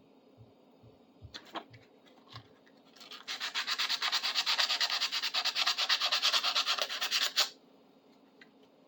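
A few light knocks from handling a small metal tool, then about three seconds in a fast back-and-forth scrubbing on the metal driver head, many strokes a second, that stops suddenly near the end.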